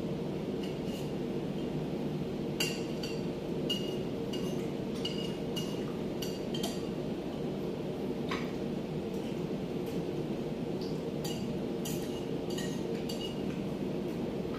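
Cutlery clinking and tapping against plates while eating: many light, separate clinks, some ringing briefly. Underneath runs a steady low machinery hum.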